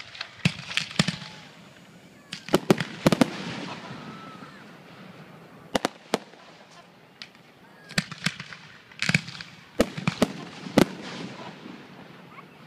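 Aerial firework shells bursting overhead: more than a dozen sharp bangs that come in quick clusters of two to four, each trailing off in a short echo.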